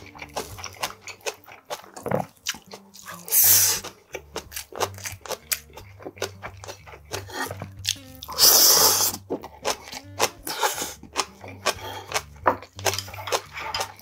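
Close-miked chewing and crunching of a mouthful of pork bulgogi and soybean sprouts, many short crisp crackles. Two louder, longer slurps come about three seconds in and again about eight seconds in.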